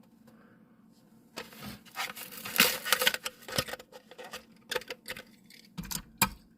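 A Hot Wheels cardboard-and-plastic blister pack being torn open by hand: a stretch of tearing and crackling about a second and a half in, lasting around two seconds, then a few sharp clicks near the end.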